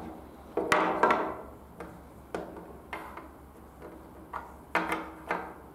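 Small plastic toy animal figures set down one after another on a tabletop, making about nine light clicks and knocks at irregular intervals, the loudest about a second in.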